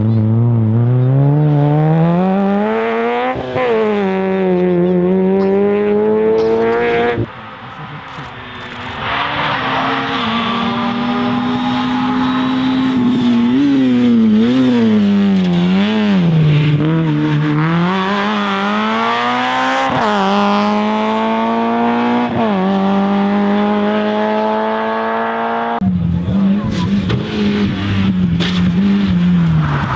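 Rally car engine driven hard, revving up and dropping back again and again as the driver changes gear and lifts off, with sudden drops in pitch about seven seconds in and again near the end.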